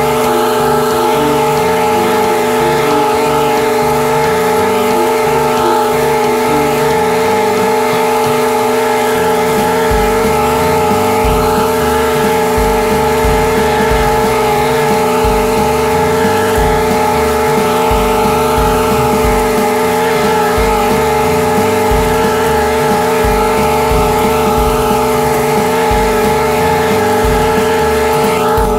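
Commercial zero-turn mower's air-cooled engine running steadily at mowing speed, heard close up from the mower's deck, with an uneven low rumble underneath.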